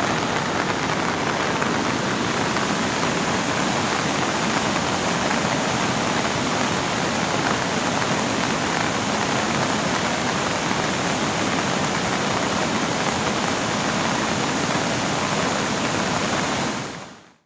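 Steady rush of heavy rain and running floodwater, an even wash of noise that fades out near the end.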